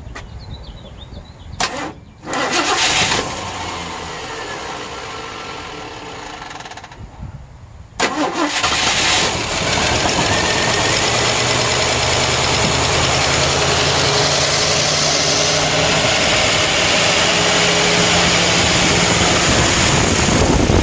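Ford 351 Windsor V8 starting up on its newly fitted carburetor about two seconds in, then running steadily at idle. It turns sharply louder about eight seconds in.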